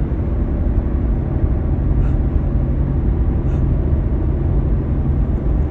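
Steady low background rumble, with two faint short breath sounds about two and three and a half seconds in, as a person waits for a sneeze to come.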